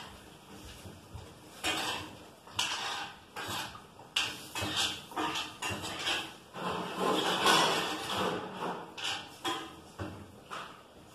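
Kitchen dishes, pans and utensils clattering: a string of irregular knocks and clinks, with a longer spell of rattling about seven seconds in.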